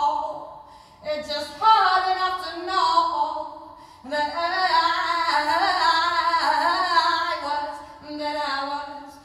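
A woman singing solo into a microphone with no accompaniment, in slow phrases whose pitch bends and ornaments from note to note. The longest phrase is held from about four seconds in to nearly eight, with a short phrase after it.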